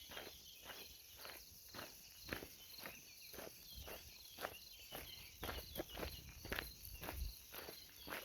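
Footsteps of someone walking at a steady pace, about two steps a second, over a steady chorus of chirping insects.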